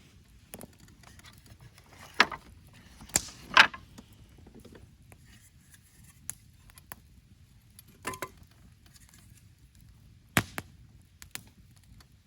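A handful of sharp knocks and clicks at irregular intervals over a quiet background, the loudest three close together a few seconds in and a few more later on.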